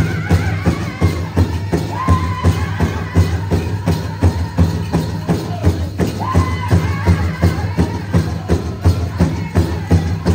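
Powwow drum group drumming and singing: an even drumbeat runs throughout, and high-pitched sung phrases come in near the start, about two seconds in and about six seconds in.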